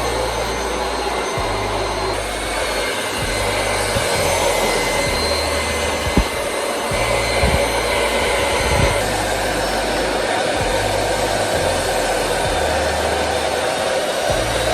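Hand-held hair dryer blowing steadily as it dries and lifts the hair, with a few brief knocks around the middle.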